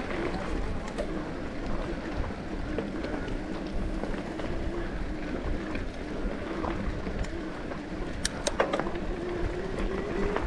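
Mountain bike riding along a dirt track: steady rumble of tyres and wind on the rider's camera, with a faint steady whine and a few sharp clicks and rattles near the end.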